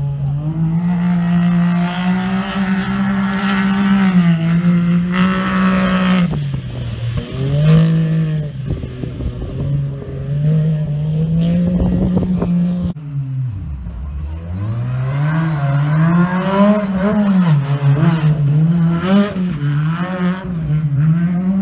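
Rally buggy engine revving hard across rough ground, its pitch climbing, holding and dropping as the driver works the throttle and changes gear. Near the middle it cuts to a second rally car's engine, which drops low, then climbs and rises and falls again in quick throttle changes.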